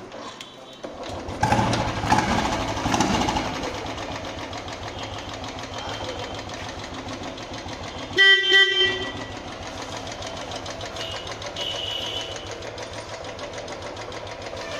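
A Royal Enfield's single-cylinder engine starting about a second in, revving roughly for a couple of seconds, then idling with an even thump. About eight seconds in its horn sounds once, a short honk.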